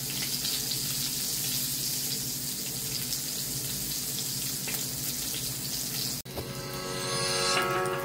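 Hot dog sausages sizzling in hot oil in a frying pan: a steady hiss over a low steady hum. About six seconds in the sound cuts off abruptly and resumes as frying with music over it.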